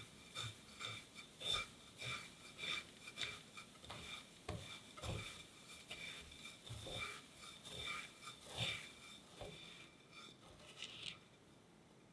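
Kataifi pastry strands being worked with a utensil: repeated short, irregular scrapes and rustles, a few a second, thinning out near the end.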